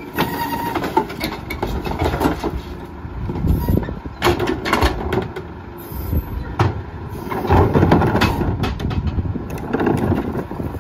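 Rear-load garbage truck's engine running steadily while a plastic wheeled trash cart is tipped by hand into the rear hopper, with repeated knocks and clatters as the cart bangs against the hopper and trash spills in.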